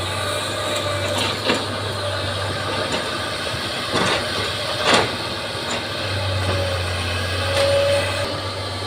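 Bulldozer's diesel engine running steadily, with a few sharp knocks or clanks: one about a second and a half in, then two close together around four and five seconds in.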